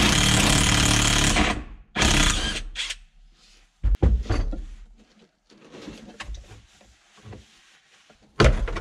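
A power tool runs for about a second and a half, then again briefly, while bolts and trim in a car's rear interior are worked loose. Scattered knocks and rattles follow, with a sharp knock about four seconds in and another loud short burst near the end.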